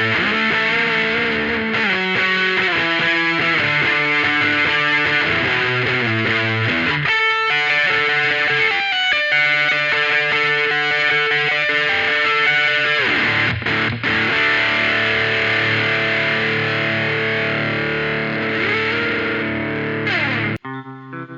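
Electric guitar played through distortion and effects pedals, ringing out sustained, shifting melodic lines. Just before the end it cuts off abruptly and a quieter, cleaner guitar part begins.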